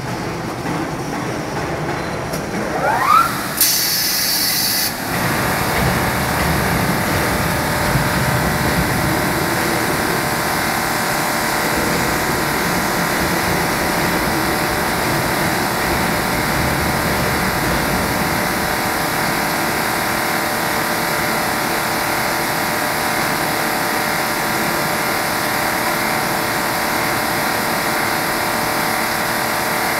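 Pot lid polishing machine running: electric motors driving the buffing wheel and the lid's spinning chuck, a steady mechanical hum with several steady tones. About three seconds in a rising whine as it spins up, then a sharp hiss lasting about a second and a half.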